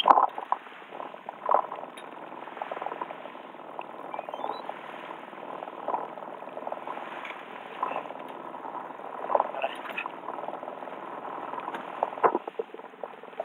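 Water sloshing and slapping irregularly against the hull of a small boat under way, with scattered splashes and knocks.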